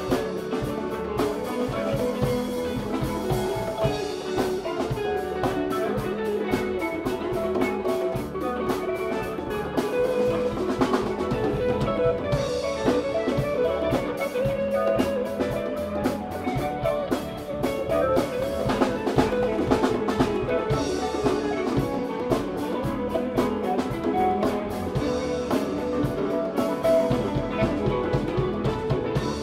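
Live band playing: electric guitars over a drum kit and hand-played congas.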